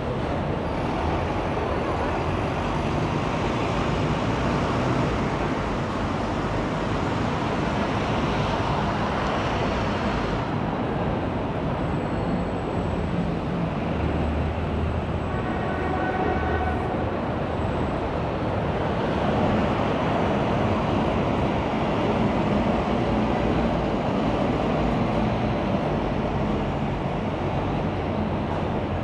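Steady road and traffic noise from a car driving through busy city streets. A brief whine with several pitches rises above it about halfway through.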